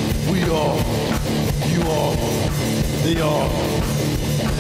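Rock music on the soundtrack: guitar over a drum kit, with a bass line and a few short figures that slide down in pitch.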